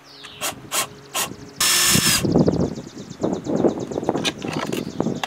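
Cordless drill boring a drainage hole through the base of a plastic flower pot: a few short trigger pulses, then a brief full-speed run with a motor whine, followed by rapid, even ratcheting clicks.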